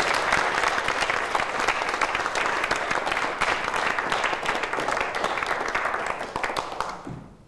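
Audience applauding, fading out about seven seconds in.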